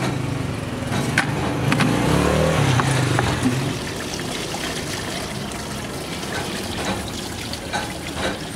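Water splashing and trickling in a shallow trough as an opened lead-acid battery case is rinsed and tipped to drain, with a few sharp knocks in the first two seconds. A low engine drone runs underneath for the first few seconds, then fades.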